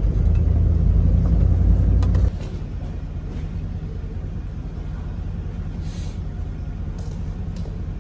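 Pickup truck driving over farm ground: a steady low engine and road rumble that drops abruptly to a quieter rumble about two seconds in.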